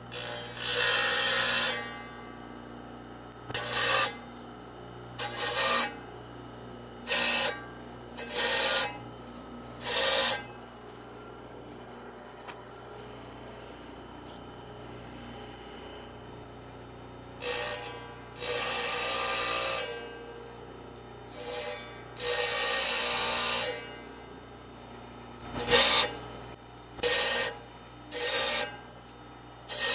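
Carbide saw-blade teeth ground by hand against a spinning diamond blade on a table saw: over a dozen short grinding rasps, each half a second to two seconds long, with pauses between them as the blade is turned to the next tooth and a longer pause in the middle. The table saw hums steadily in the gaps.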